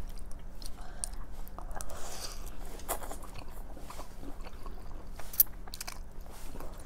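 Close-up eating sounds of spaghetti in sausage sauce: wet chewing, slurping of noodle strands and small mouth clicks, with one sharper click a little past five seconds in, over a faint steady low hum.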